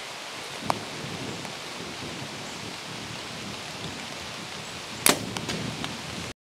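A Mathews V3X compound bow shot about five seconds in: one sharp crack, followed by a few lighter clicks, over a steady hiss. A smaller click comes a little under a second in, and the sound cuts off abruptly just before the end.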